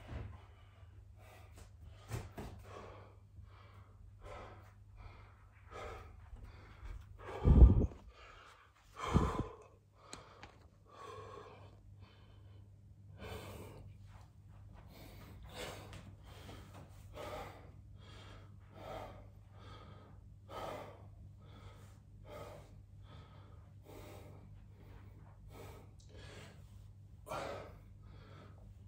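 A man breathing hard from exertion during bodyweight exercise, with short audible breaths repeating every second or two. Two louder thumps come close together about a third of the way in.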